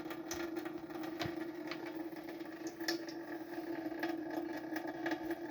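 Tap water running steadily with a constant hum, and a few light clicks or splashes now and then.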